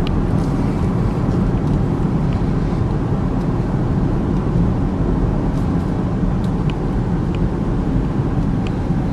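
Steady road and tyre noise with engine hum inside the cabin of a 2013 Chevy Equinox cruising along a straight road, with a few faint small ticks.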